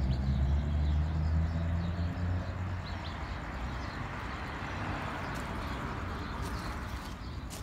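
Road traffic: a vehicle's low engine hum that fades after about two and a half seconds into a steady rush of passing tyres and traffic noise, with a few faint bird chirps.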